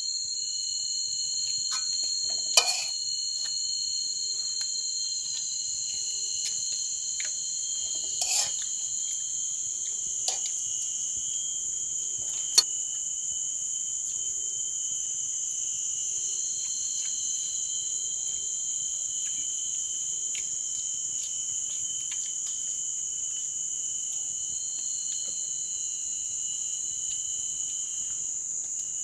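A chorus of forest insects keeping up steady, shrill, high-pitched drones at several pitches at once. A few sharp clicks stand out, the loudest about two and a half and twelve and a half seconds in.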